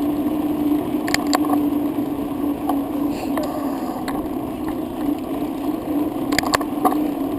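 Bicycle rolling downhill with a steady low hum and rushing noise. Sharp clicks and rattles from the bike come in a cluster about a second in, a couple more in the middle, and another cluster near the end.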